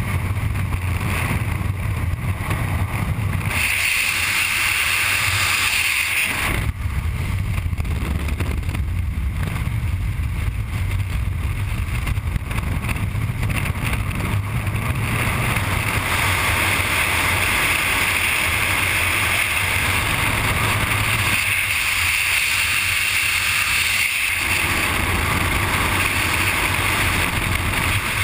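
Freefall wind rushing over a helmet-mounted GoPro camera: a loud, steady rush of air that shifts in tone a couple of times, about four seconds in and again past twenty seconds.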